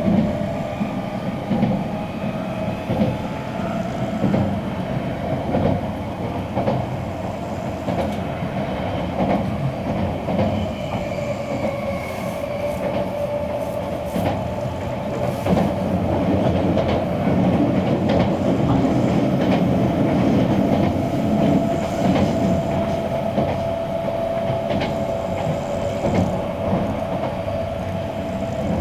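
Running noise inside a Keisei new AE-type Skyliner car at speed: a continuous rumble of wheels on rail, with irregular clacks over rail joints and a steady whine that rises slightly in pitch in the second half.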